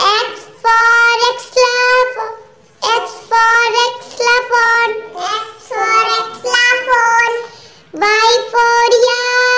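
A child's voice singing in four short phrases of held, steady notes, with brief pauses between them.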